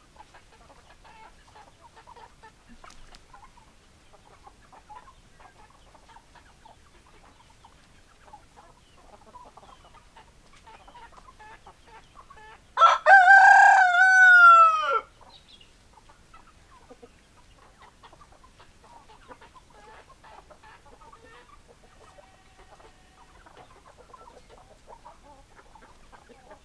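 Hens clucking softly throughout, with one loud rooster crow of about two seconds near the middle.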